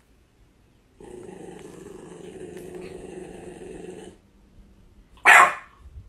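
A stocky pit bull–type dog growling steadily for about three seconds. A single brief, loud burst follows near the end.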